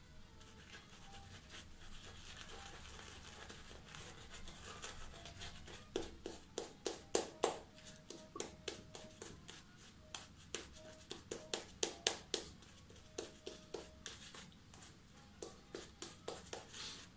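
Muhle R89 double-edge safety razor scraping through lather and stubble in short, quick strokes on a third shaving pass. The strokes are sparse at first and come in rapid runs from about six seconds in.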